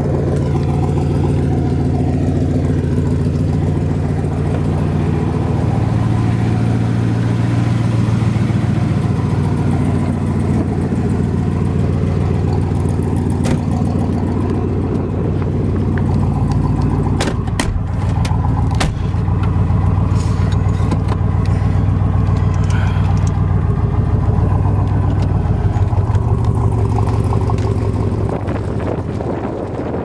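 A 1966 Corvette's 427 big-block V8 running through its side exhaust pipes while the car drives, the engine note rising and falling. A few sharp ticks come a little past halfway.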